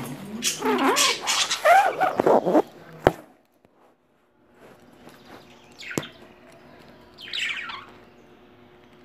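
Budgerigars chattering and warbling for the first few seconds, then a sharp click, a short pause, another click about six seconds in, and one brief chirp near the end.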